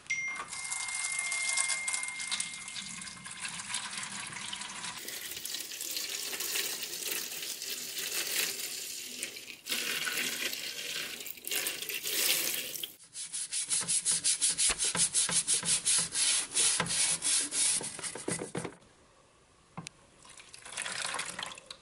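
Soapy water poured from a glass pitcher, splashing into a metal pan around a rusty bung borer for about the first half. Then the tool is scrubbed in the water with quick back-and-forth strokes, about five a second, with a short pause and a brief last burst near the end.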